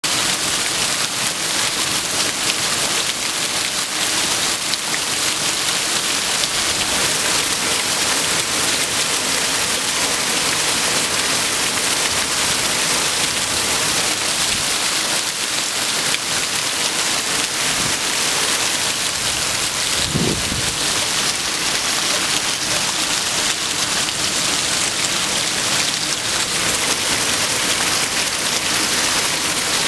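Torrential rain pouring down, a steady, dense hiss throughout, with one brief low thump about two-thirds of the way through.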